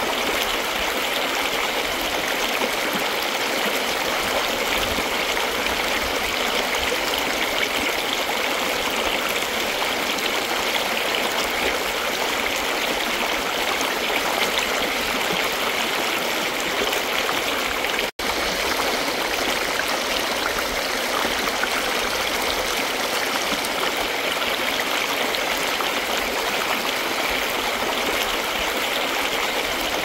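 Shallow rocky stream flowing steadily over stones and around a person's legs, a continuous rushing, babbling water sound. The sound cuts out for an instant about two-thirds of the way through.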